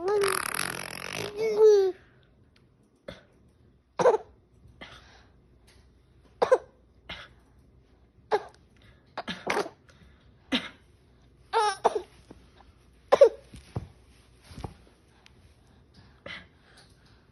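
A mother and a baby trading short coughs, the baby imitating her coughs one after another, with laughter early on and between them.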